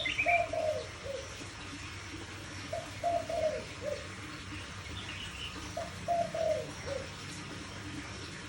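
Caged spotted dove cooing: three phrases of several low notes, the last note falling, each repeated about every three seconds. A few faint high chirps from another small bird come near the start and about five seconds in.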